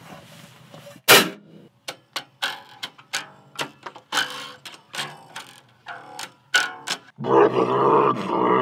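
A cymbal crashes once about a second in, followed by a quick run of short struck and plucked notes on an electric bass. From about seven seconds a didgeridoo starts a loud, steady buzzing drone.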